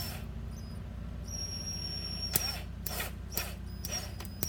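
A screw being turned by hand into a 3D-printed plastic part: a thin high squeak for about a second, then several sharp creaks and clicks. Under it, the steady low rumble of a washer and dryer running.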